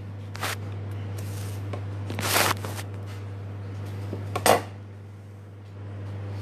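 Handling noises from a handmade dancing-lady vase being moved close to the microphone: several short brushing rustles, then a sharp knock about four and a half seconds in, the loudest sound. A steady low hum runs underneath.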